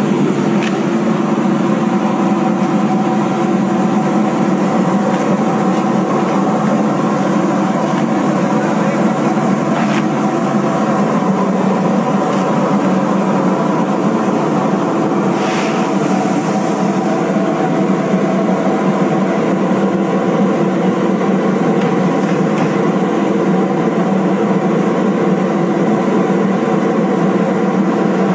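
Rice mill machinery running: a loud, steady drone with several steady hum tones, and a brief rushing noise about halfway through.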